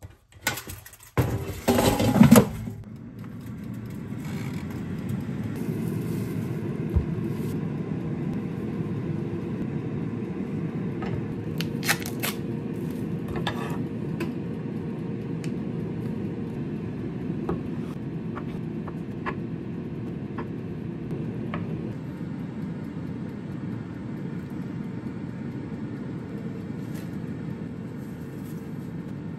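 Air fryer basket knocked into place and the fryer started with a few loud clunks, then its fan running with a steady low hum. A few light clicks and taps from cutting food sound over the hum about halfway through.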